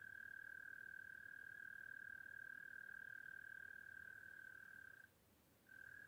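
Faint, continuous high-pitched trill from a night-calling animal, holding one steady pitch. It breaks off for about half a second near the end, then starts again.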